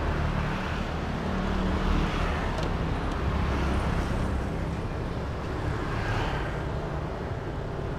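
Steady road traffic noise from passing vehicles, including motorbikes, heard as a constant low rumble.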